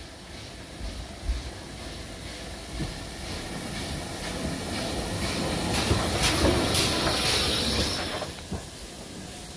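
GWR 5700-class pannier tank locomotive no. 4612 approaching on the adjacent track and passing close by, with hissing steam and some clicks. It grows louder to a peak about six to seven seconds in, then falls away sharply about eight seconds in.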